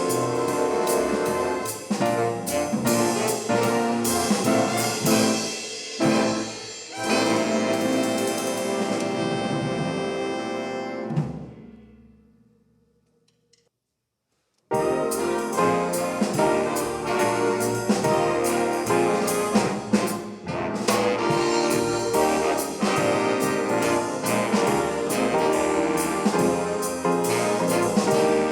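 High school swing band playing brass-led jazz. About halfway through, the music fades out to a couple of seconds of silence, then the band starts again abruptly.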